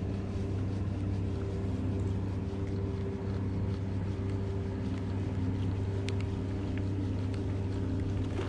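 A boat's engine running steadily: a deep, even hum with several overtones that holds the same pitch throughout.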